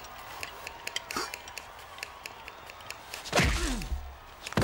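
Light ticking repeating a few times a second, then about three seconds in a heavy thud followed by a short falling tone.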